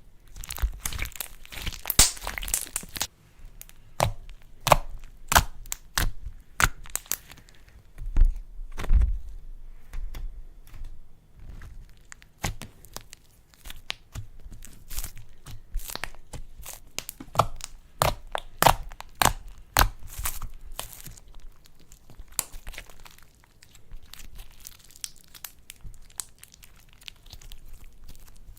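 Slime being worked by hand, with irregular crackling, crunching pops and a few heavier squishes.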